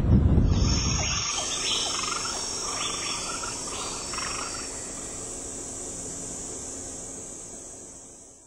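Nature ambience of a steady high-pitched insect drone with a run of short repeated chirps. A low rumble dies away in the first second, and the whole fades out near the end.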